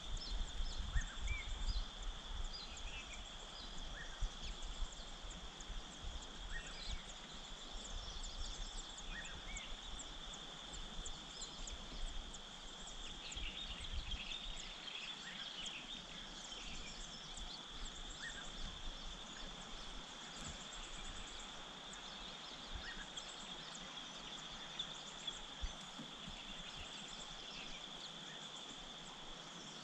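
Outdoor ambience: a steady high-pitched drone with many short bird chirps scattered through it. A low rumble of wind on the microphone is heavier in the first half.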